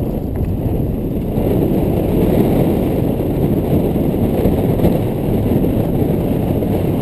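Steady, muffled rumble of a car driving slowly, picked up by a camera mounted on the outside of the car: wind buffeting and road noise on the microphone, with little above the low end.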